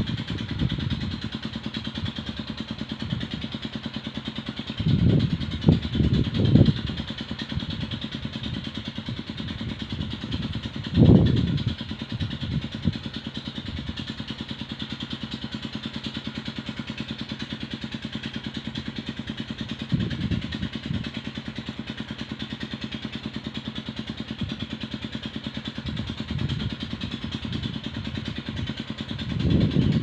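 An engine running steadily, with louder low rumbles several times, the strongest about eleven seconds in and another building near the end.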